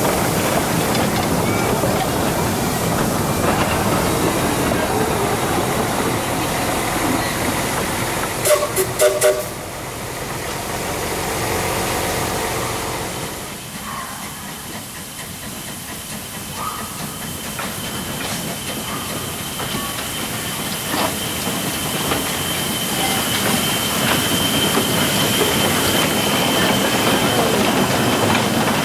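Small narrow-gauge steam train running, with steady rail and wheel noise heard riding aboard and a quick run of short sharp sounds about nine seconds in. After a quieter spell the steam locomotive passes, hissing steam, with the train noise growing louder toward the end.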